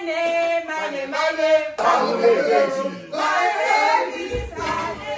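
Several people, men and women, singing a Nigerian nursery rhyme together, with held notes.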